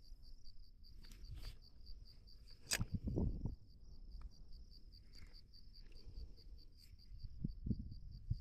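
Cricket chirping steadily, a high, even pulse of about five chirps a second. A few knocks and rustles, the loudest about three seconds in.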